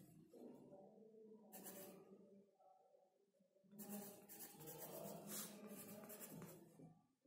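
Pencil scratching faintly on sketchbook paper while block letters are written, in short strokes, with a pause of about a second a few seconds in.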